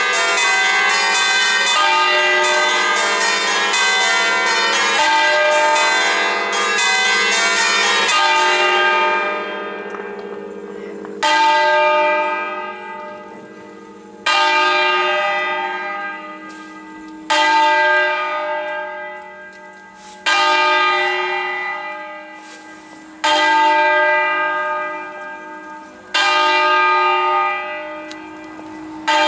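Ring of six Barigozzi church bells tuned in E-flat, swung on their wheels: for the first eight or nine seconds the bells strike rapidly over one another, then the ringing thins out to single heavy strokes about every three seconds, each one ringing on and fading before the next.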